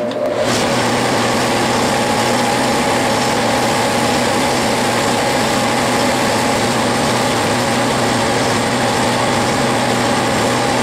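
Metal lathe running steadily while a cutoff tool parts off a small turned metal pin, a constant machine hum with a steady whine.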